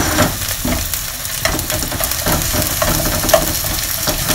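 Sliced onions sizzling in oil in a nonstick frying pan, stirred with a spatula that scrapes and taps against the pan now and then.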